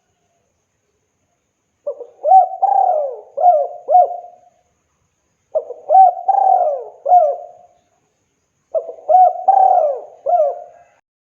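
Spotted dove (tekukur) singing: three repeated cooing phrases, each a run of several rising-and-falling coos lasting about two and a half seconds, with short pauses between.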